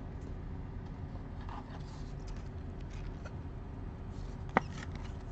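Faint handling rustles of a trading card and a clear plastic card holder over a steady low hum, with one sharp click about four and a half seconds in as the holder snaps shut.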